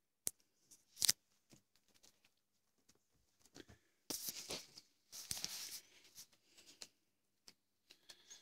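Maine Coon cats playing with catnip sachets: rustling and crinkling of the bags, with sharp clicks and scuffles, in two longer bursts around the middle.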